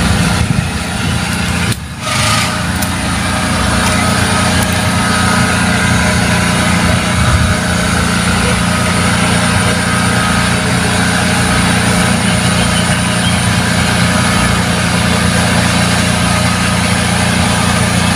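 Water pump for the fishing pond running steadily, a constant low mechanical hum, with a short dip in level about two seconds in.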